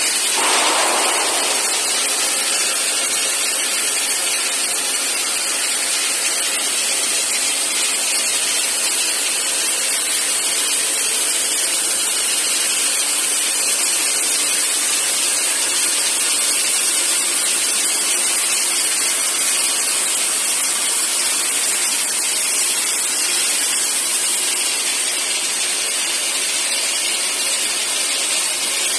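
Torch of a rotary beveling CNC cutting machine hissing steadily as it cuts a bevelled opening in a tank, a loud, even, high hiss that holds unchanged throughout.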